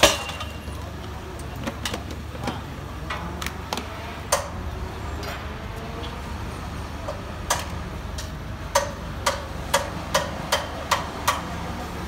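Hammer strikes and clanks on the steel fittings of a level-crossing warning post being dismantled: a sharp knock at the start, a few scattered clanks, then a run of about six strikes about half a second apart near the end. A steady low engine rumble from the work vehicles runs underneath.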